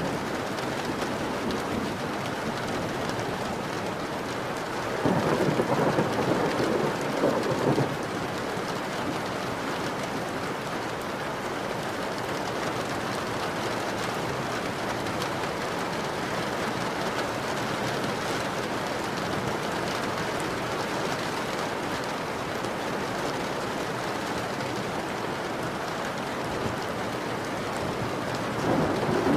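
Steady heavy rain falling. A louder surge comes about five seconds in and lasts around three seconds, and another begins near the end.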